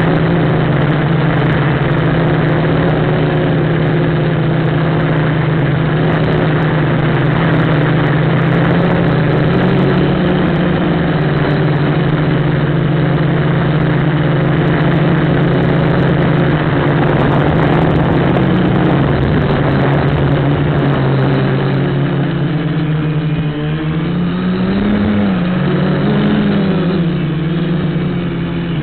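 FPV quadcopter's electric motors and propellers whirring steadily, heard through the craft's onboard microphone with heavy wind noise over it. The pitch wavers up and down in the last few seconds as the throttle changes.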